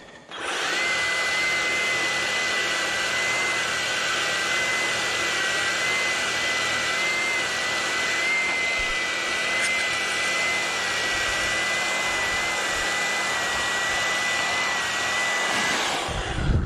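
EGO POWER+ battery power head spinning its 22-inch bristle brush attachment, the bristles sweeping debris off a paved edge. A steady high whine starts about half a second in and cuts off just before the end.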